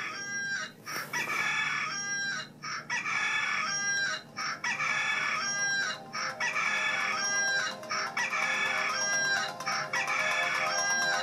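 A rooster crowing, the same crow repeated over and over at an exactly even pace, about once every 1.2 seconds, like a looped recording.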